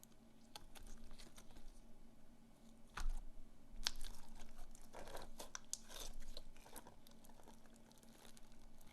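Slime being squeezed and worked by hand, giving irregular crackling clicks and small pops, busiest in the middle.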